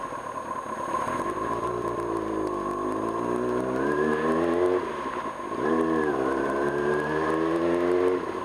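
1995 Kawasaki Ninja ZX-6R's inline-four engine accelerating, the revs climbing, dipping briefly for a lift off the throttle about five seconds in, then climbing again until they drop near the end.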